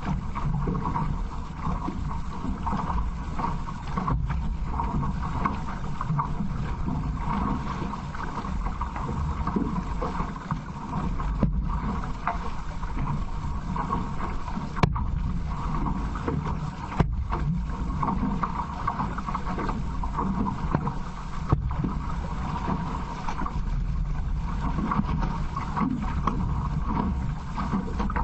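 Steady wind rumble on the microphone mixed with water rushing along the hull of an outrigger canoe under paddle.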